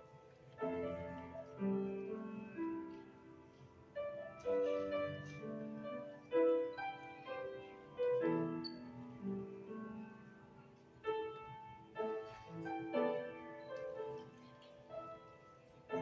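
Grand piano playing a slow piece, single notes and chords struck and left to fade.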